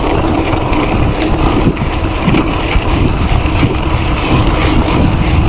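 Wind buffeting the microphone over the rumble of a Gios FRX mountain bike's tyres on a dirt road at downhill speed, with short rattles and knocks from the bike over bumps.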